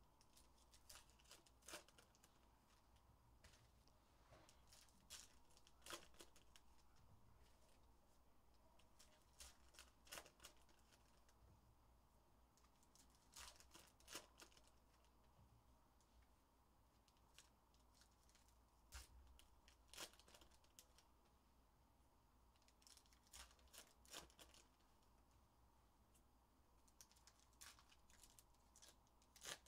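Faint, scattered crinkling and crisp clicks as Topps Heritage High Number baseball-card packs are torn open and the cards handled and stacked, over near-silent room tone.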